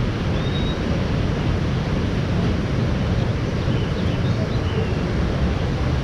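Steady rumbling of a round river-rapids raft riding the ride's wooden-slatted conveyor ramp, mixed with running water.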